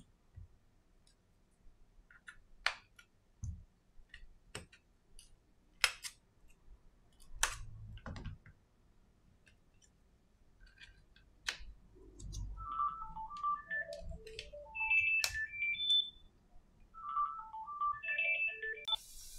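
A phone ringtone: a short melody of bright electronic notes that starts about halfway through and plays twice. Before it come light clicks and taps from a plastic opening pick and the phone being handled on a silicone mat.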